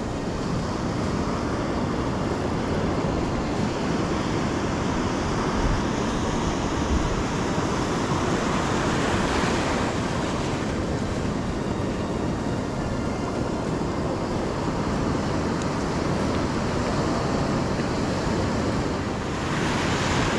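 Sea surf breaking and washing in a steady rush, swelling louder about nine seconds in and again near the end.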